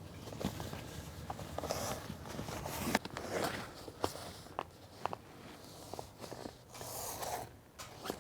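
Handling noise from fitting heavy soundproof wall panels and their fabric sealing flaps onto a booth frame: scattered light knocks and clicks with a few short bursts of rustling.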